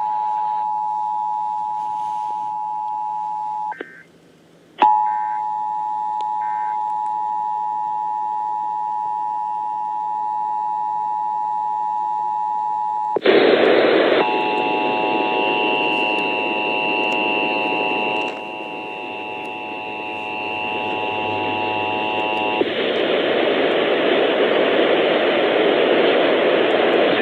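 Emergency Alert System two-tone attention signal, a steady dual tone, briefly cutting out about 4 s in. About 13 s in it gives way to a louder, hissy off-air recording: several steady alert tones over radio static.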